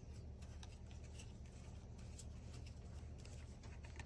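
Faint scattered clicks and rustles of trading cards being handled and flipped through, over a low steady hum.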